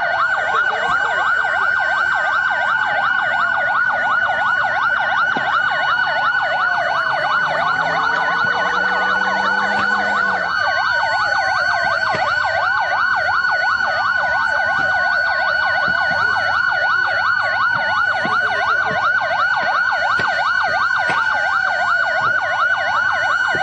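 Several emergency-vehicle sirens wailing at once: many overlapping sweeps falling in pitch, layered over a steady high tone, loud and unbroken.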